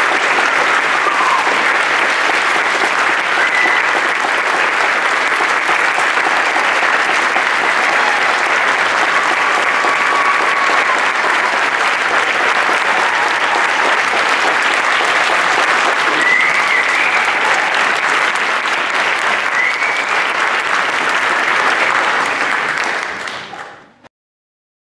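Sustained applause from a large audience, with a few brief voices calling out over it. It fades out near the end and stops.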